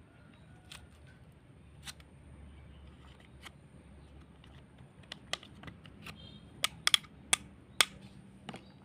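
Thin metal rod poking and scraping inside the socket of a wooden sickle handle to clean it out: scattered light clicks and scrapes, with a run of sharper clicks about two-thirds of the way through.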